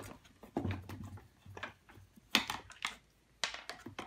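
Hand screwdriver turning out a screw deep in a plastic vacuum-cleaner housing: scattered small clicks and knocks of the tool and the plastic parts being handled, a few of them louder.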